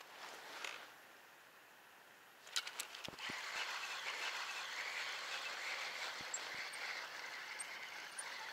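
Spinning reel being cranked to retrieve line: a few sharp clicks, then from about three seconds in a steady whirring from the reel as the line is wound in.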